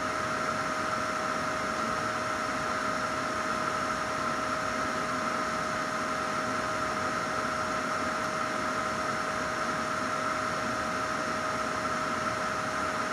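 Anycubic Photon Mono M5s Pro resin 3D printer running at the end of a print, its Z-axis motor raising the build plate out of the resin vat: a steady hiss with a constant whine.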